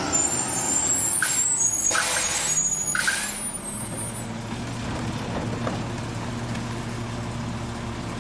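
Crane Carrier garbage truck's air brakes hissing in three short blasts with a high-pitched squeal as it comes to a stop, then its diesel engine idling with a steady low hum from about four seconds in.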